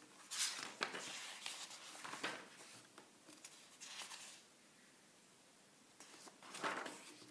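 Paper pages of a large hardcover book being turned by hand: a series of soft rustles and swishes, with a quiet pause shortly before the last one near the end.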